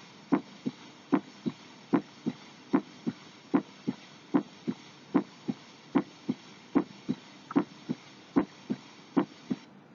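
Human heart sounds heard through a stethoscope, a steady lub-dub. Each beat is a louder first sound followed about a third of a second later by a softer second sound, at about 75 beats a minute over a steady hiss.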